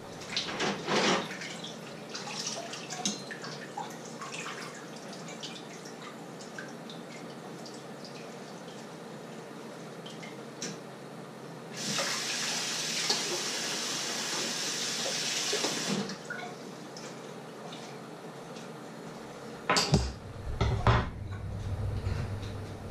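Kitchen tap running into the sink for about four seconds during hand dishwashing, with small clinks of dishes before it and two loud knocks near the end.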